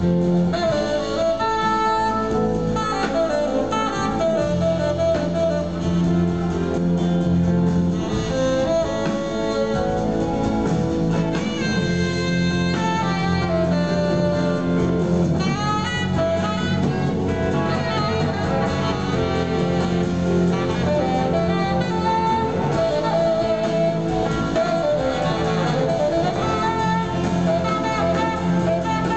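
Large blues-rock band playing live, heard from the audience, with electric guitar, saxophone and two drum kits.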